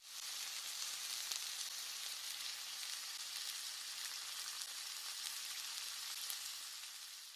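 Steady sizzling hiss with faint crackles, fading out near the end.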